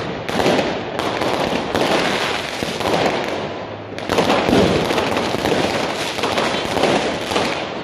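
New Year's fireworks and firecrackers going off all around: a dense, unbroken run of overlapping bangs and pops, close and loud.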